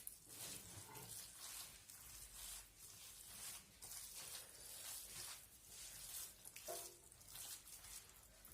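Faint, repeated wet squelching strokes as a soft chermoula filling with minced meat and yogurt is mixed in a bowl.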